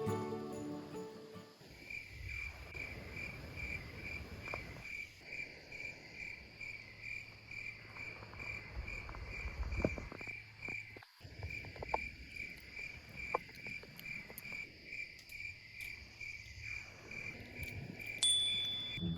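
An insect chirping in an even rhythm at one pitch, about three chirps a second, with a brief pause about halfway through. Faint rustles and light clicks sit underneath, and a short high beep sounds near the end.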